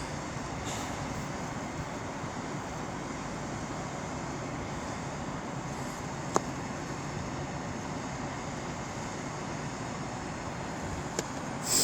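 Steady low rumble of background noise at a railway station platform, with a single sharp click about six and a half seconds in and a fainter one near the end.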